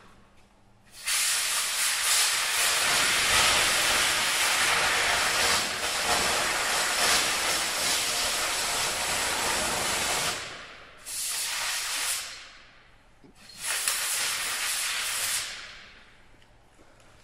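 Broco BR-22 Plus oxy-arc cutting torch burning into steel: a loud, steady hiss of oxygen and burning rod. It starts about a second in and runs for about nine seconds, then comes back as two shorter bursts.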